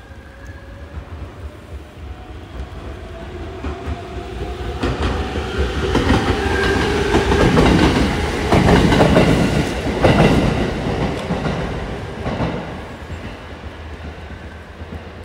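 Echigo Tokimeki Railway ET127-series electric train accelerating away from the station and passing close by. First its motor whine rises in pitch; then the wheels clatter over the rail joints as the cars go past, loudest in the middle, and the sound fades as the train draws away.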